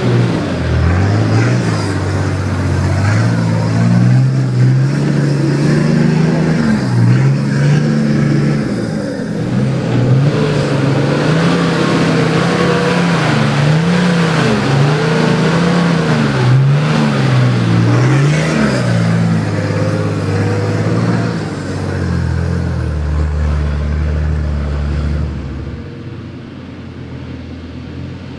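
Nissan Patrol 4WD engine revving up and down again and again as the vehicle works through deep, muddy ruts, settling to a lower, quieter note near the end.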